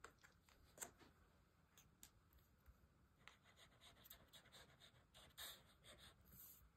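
Near silence, with faint scattered ticks and soft rustles of paper being handled while liquid glue is run along a paper frame.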